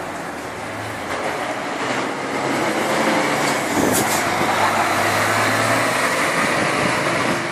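Heavy road vehicle driving past: engine running with tyre and road noise, building about a second in and loudest through the middle, with a short sharp click about four seconds in.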